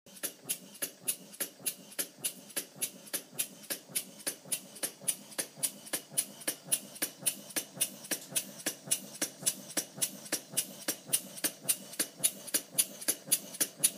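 Brass-and-bronze model steam engine with epicyclic gearing running steadily, giving sharp, evenly spaced exhaust puffs at about three to four a second.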